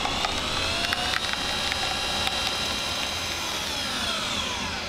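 Single-serve coffee machine running as it brews into a cup: a motor-like whine that rises in pitch about a second in, holds steady, then winds down near the end, with a few small clicks.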